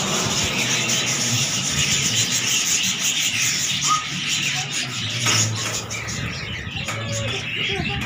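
A large flock of budgerigars chattering and chirping continuously, a dense mass of overlapping warbles and short chirps.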